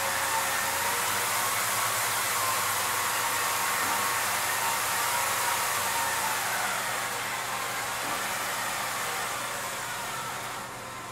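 Motors of a homemade multi-axis motion-control camera rig running as the camera moves to its next position. It is a steady hiss with a faint whine that shifts in pitch, and it eases off over the last few seconds.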